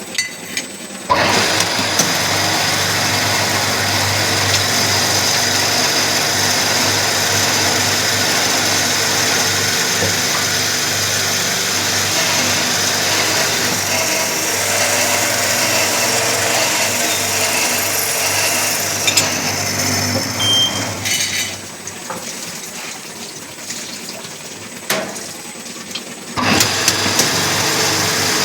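Automatic drilling and tapping machine running with a steady mechanical hum. It starts up about a second in, falls to a quieter lull for about five seconds near the end, then starts up again.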